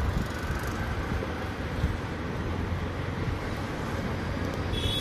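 Steady background rumble and hiss with a low hum, and a brief high squeak near the end.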